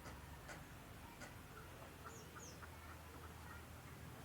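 Near silence: a faint low hum with a few light ticks, and two pairs of short, high chirps from small birds in the background.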